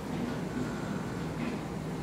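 Steady low background hum and rumble, with a faint higher tone in the middle and no distinct knocks or steps.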